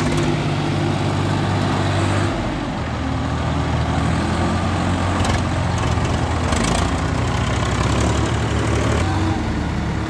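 Two tractor diesel engines running hard under load, a loud, steady low engine drone whose note shifts about two seconds in.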